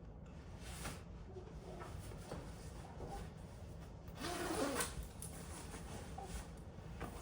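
Quiet rustling and handling noise, with a brief louder rustle about four seconds in.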